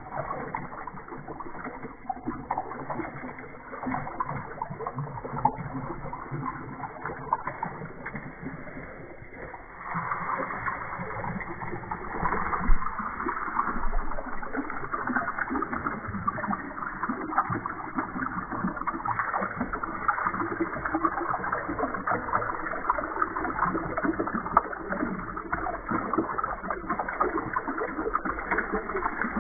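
Water pouring in streams into a plastic tub, splashing and splattering steadily, played back slowed down so that it sounds low and muffled. It grows louder about a third of the way through.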